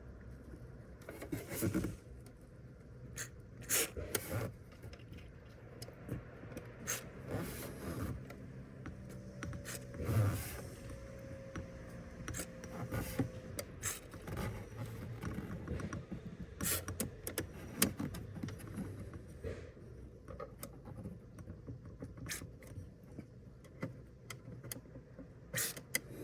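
Plastic interior trim panels of a Volkswagen Touareg's centre console being handled by hand: irregular scraping and rubbing with scattered clicks and knocks.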